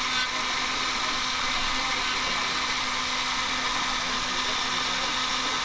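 Rotary tool with a small sanding drum running steadily at speed, sanding down the tail of a carved wooden lure: a continuous high motor whine with a sanding hiss.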